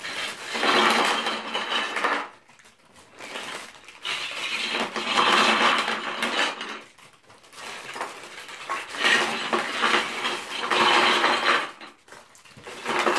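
Hard-plastic Lego Duplo bricks loudly clattering against each other and the tabletop as bags of them are tipped out. The clatter comes in three long bursts with short pauses between, and a brief one near the end.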